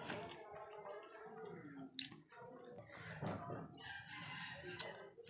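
A rooster crowing, its call falling in pitch at the end.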